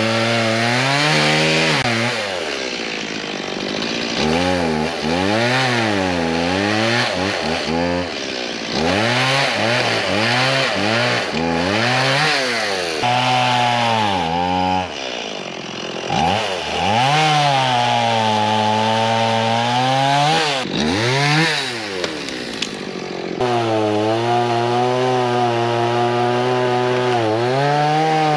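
Chainsaw cutting up a fallen tree, the engine revving up and falling back again and again as it works through the wood, with a few brief drops toward idle between cuts and longer held high-revving cuts later on.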